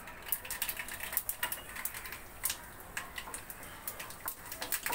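Whole black mustard seeds and dried red chillies frying in hot mustard oil in a kadai: the seeds splutter with many irregular sharp pops and crackles as the tempering (phoron) fries.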